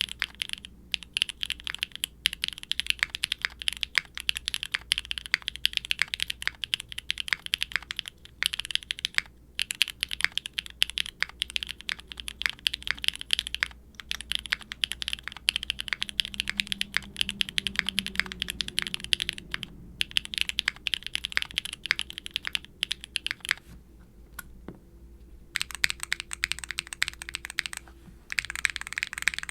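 Continuous typing on a QwertyKeys neo65 aluminium mechanical keyboard with factory-lubed Kailh BCP linear switches, a carbon fibre plate, no dampening foam and GMK double-shot ABS keycaps. It gives a sharp, bright, clacky keystroke sound in quick runs, broken by a few short pauses.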